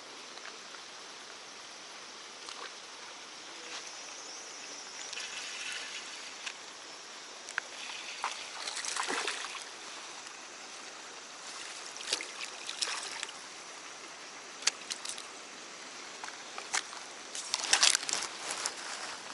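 Water sloshing and splashing over a steady hiss, with scattered sharp clicks; the loudest burst of splashing comes near the end.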